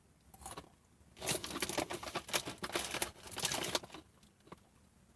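Dry crackling and crinkling of potato sticks and their snack bag, a dense run of small crisp cracks lasting about three seconds, followed by a couple of single clicks.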